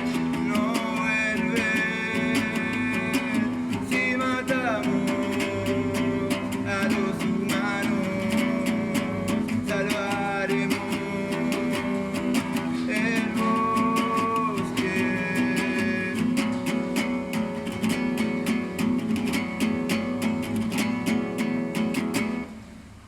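Acoustic guitar strummed steadily, with a voice singing over it. The song ends and dies away near the end.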